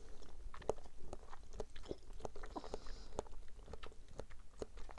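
Close-up chewing of mango-flavoured konjac jelly balls: a quick, irregular run of short mouth clicks, several a second.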